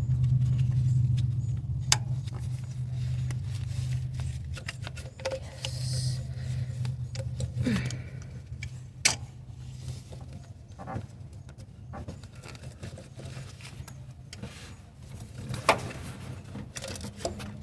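Hands and tools working a heater hose off its fitting in a cramped engine bay: scattered clicks, knocks and rattles. A low hum runs underneath and fades out after about ten seconds.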